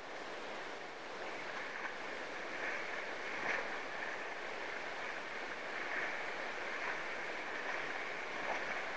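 Surf washing steadily on a beach, with the soft whir of a spinning reel being cranked to retrieve a metal jig.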